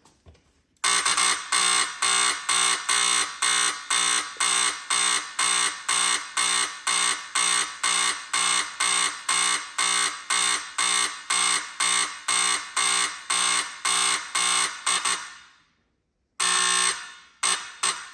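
Vintage 1990s Firex buzz-type fire alarm sounding a loud buzzing tone, switched on and off in even pulses of about two to three a second. It dies away, then restarts near the end in a few uneven pulses.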